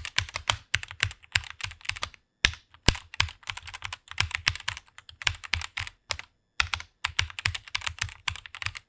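Computer keyboard being typed on quickly: rapid runs of key clicks broken by short pauses, twice for about half a second.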